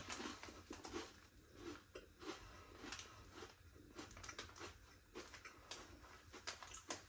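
Faint chewing and crunching of Kurkure Masala Munch, a crunchy dal, corn and rice snack, heard as a scattering of small irregular crisp clicks.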